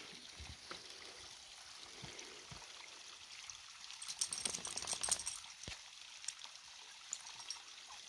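Faint trickle of water running down a mossy rock face and dripping into a shallow pool, a steady soft hiss, with a brief cluster of sharp ticks about four to five seconds in.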